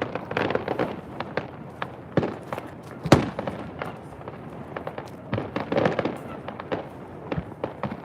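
Fireworks going off: an irregular string of sharp bangs and crackles, the loudest bang about three seconds in.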